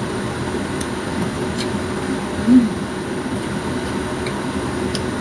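Steady rushing background noise like a running fan, with one brief low hum about two and a half seconds in.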